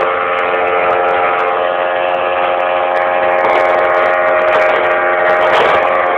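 Boat's outboard motor running steadily at cruising speed, a constant droning pitch.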